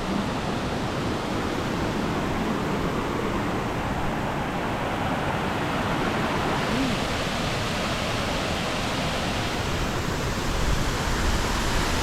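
Steady rush of falling water from a waterfall, an even, unbroken noise.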